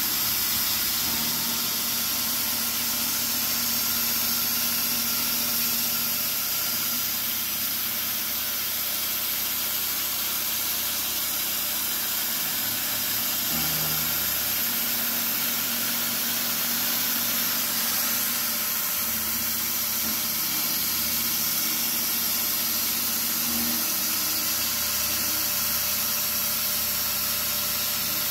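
CNC milling machine running its spindle while an end mill cuts an aluminium block, under a steady hiss from the blast of the coolant nozzle aimed at the cut.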